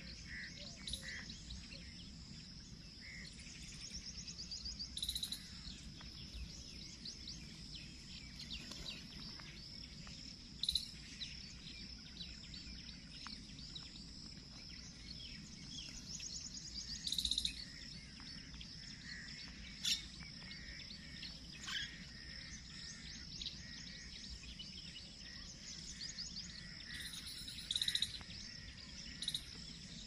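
Birds chirping and calling, with a sharper, louder call every few seconds, over a steady high-pitched insect buzz and a low background rumble.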